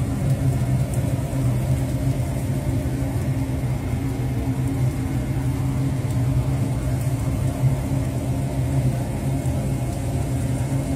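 A steady low mechanical hum, like a motor running, holding one even pitch throughout.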